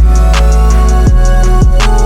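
Electronic background music with a steady beat: deep bass-drum hits that drop in pitch on each stroke, held bass and synth notes, and regular high ticks.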